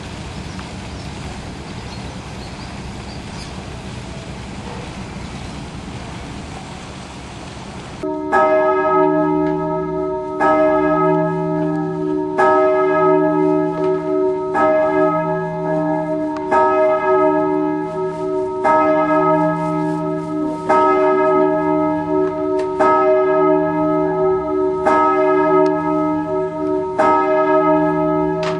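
Steady noise, then about eight seconds in the Swan Bells start ringing: a ring of large tower bells swung by bellringers, the strikes coming in quick runs of one bell after another that repeat about every two seconds, each note ringing on.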